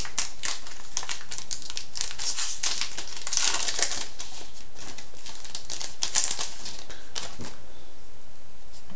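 Crinkling of a trading-card pack's foil wrapper and cards being handled, a run of short crisp rustles and ticks that thins out near the end.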